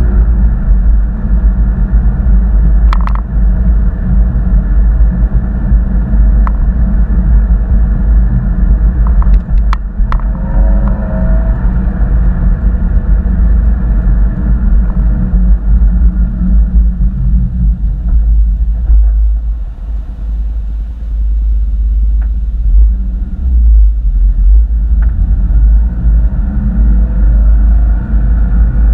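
Loud, heavy low rumble from a 2013 Porsche Boxster on the move, recorded on a GoPro Hero 4 Black and overlaid with the fluttering 'helicopter' noise that the uploader blames on the camera's wifi. A few sharp clicks cut through, about three seconds in and again near ten seconds.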